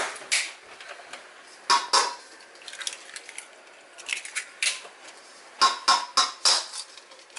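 Eggs being cracked one after another against a stainless steel mixing bowl: a series of short, sharp taps and knocks of shell on metal, coming in clusters every second or two.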